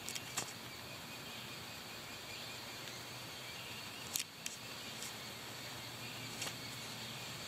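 Yellow-bellied sapsucker nestlings calling steadily from inside the nest cavity, a continuous high chattering, broken by a few sharp clicks near the start, twice about four seconds in, and once more near the end.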